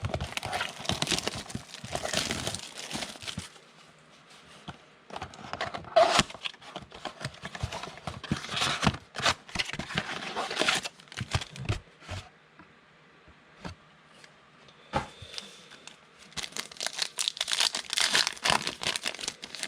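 Plastic wrapping of a trading-card blaster box and its card packs crinkling and tearing in several bursts as they are opened, with short quiet gaps between.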